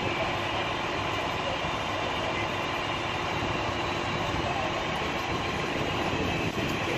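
Steady running of idling fire apparatus engines, an even rumble with no break or change.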